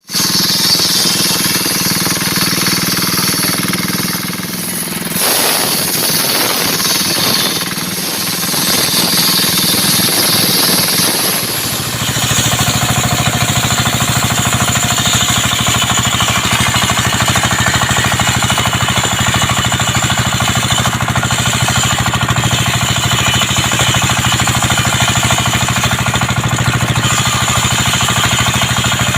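Homemade circular-saw sawmill (serkel) running while sawing coconut wood, with a loud, rapid, even pulsing. The sound varies over the first twelve seconds, with higher hiss coming and going, then settles into a steady run.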